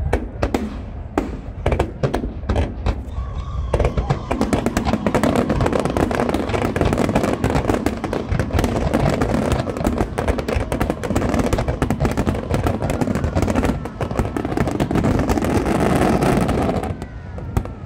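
Aerial fireworks bursting: a few separate bangs, then from about four seconds in a dense, rapid crackle of many shells going off together that cuts off shortly before the end.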